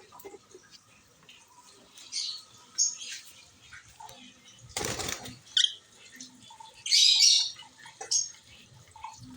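Fischer's lovebirds giving short, shrill chirps and squawks at intervals, with a louder cluster of calls near the end. A brief rustle sounds about halfway through.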